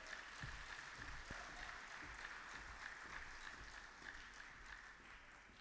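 Faint audience applause, many scattered hand claps that thin out and fade toward the end.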